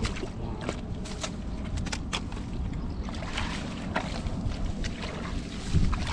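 Wind rumbling on the microphone, with scattered short splashes and squelches from feet and hands moving through shallow muddy water and grass; a louder cluster of splashes comes near the end.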